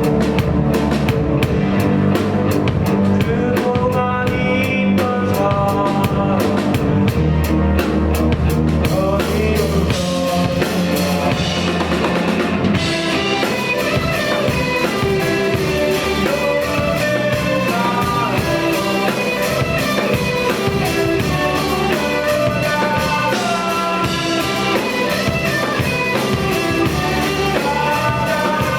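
Live rock band playing the song, with drum kit, guitars and a singing voice. The drumming is dense for the first ten seconds or so, then the texture changes.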